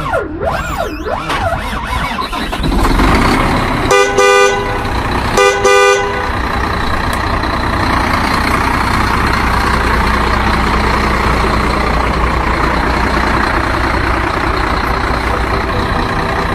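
Truck engine running steadily, with two short two-tone horn blasts about four and five and a half seconds in. A brief warbling sweep opens the sound.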